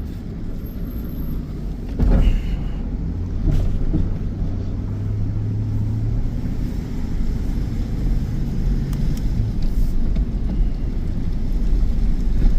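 A plow truck's engine running with a steady low rumble, with a single thump about two seconds in.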